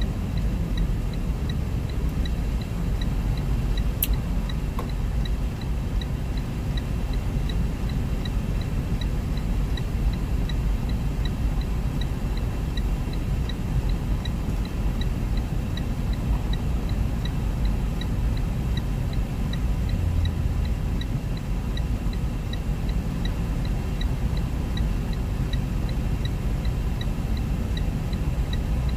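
Low steady rumble of a loaded semi truck's diesel engine and road noise heard inside the cab. A light ticking about twice a second runs under it.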